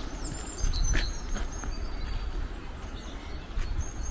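Small birds chirping, with short high calls and quick glides, over a steady low rumble that swells briefly in the first second and a half.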